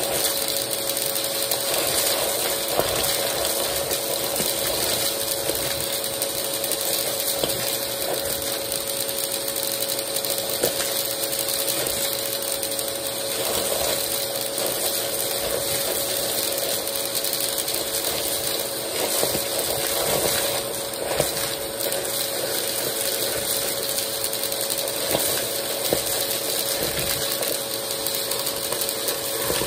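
Vacmaster vacuum cleaner running steadily while its clear plastic wand sucks up coins, beads, sequins and pull tabs from a tub, the small hard pieces rattling and clicking up through the tube.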